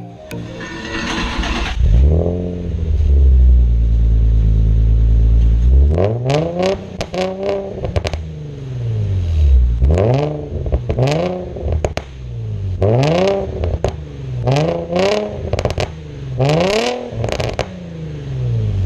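Nissan 350Z's V6 engine running, then revved up and let back down repeatedly in quick blips.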